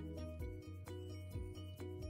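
Background music: a light tune of short pitched notes over a steady bass, with a regular beat.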